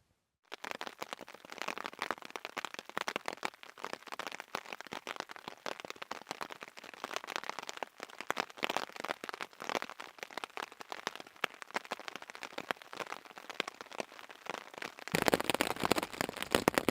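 Rain falling on a hammock tarp: a dense, irregular crackle of many small drop hits.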